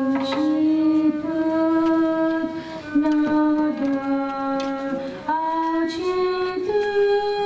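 A woman singing a slow devotional chant through a microphone and loudspeaker, holding long notes and moving in steps between them.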